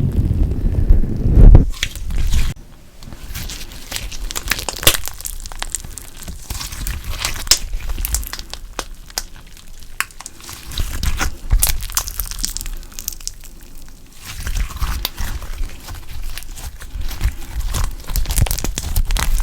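Slime being squeezed and worked by hand, giving dense runs of small clicks and crackles. Heavier, deeper presses come in the first couple of seconds and again through the second half.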